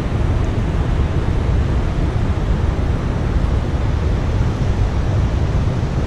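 Steady noise of rushing river water from the falls, heaviest in the low end, with no pauses or separate events.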